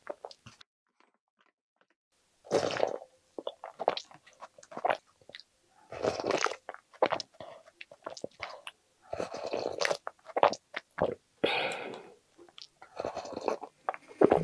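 Close-miked eating sounds: slurping, chewing and swallowing of strawberry-milk-soaked cheesecake spooned straight from the container's rim. They come in short bouts every second or two, after a brief quiet spell near the start.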